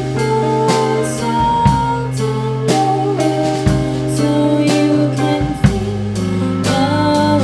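Live band playing: a woman singing over electric guitar, electric bass and a drum kit, with snare and cymbal hits keeping a steady beat.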